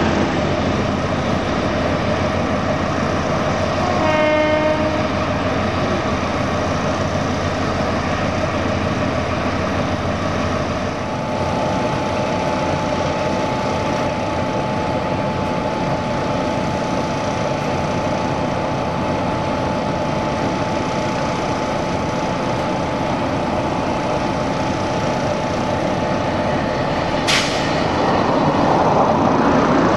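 Class 60 diesel locomotive engines running steadily, with a short horn blast about four seconds in. Near the end comes a sharp clank, then the engine note swells as one locomotive powers up, putting out a cloud of exhaust.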